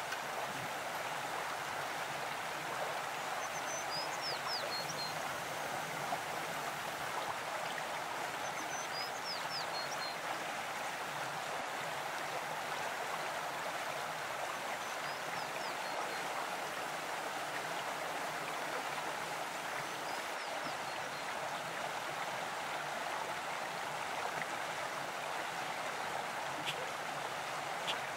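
Stream water flowing steadily, with a small bird's brief high chirps every four or five seconds.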